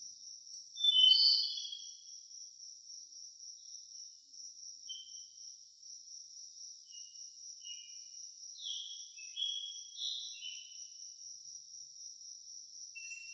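Birds singing short, high chirping phrases, the loudest about a second in and a run of them in the second half, over a steady high drone of insects.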